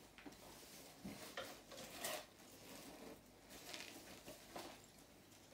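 Faint rustling of wrapping and a few light clicks as a handbag and a belt with a metal buckle are handled and unpacked.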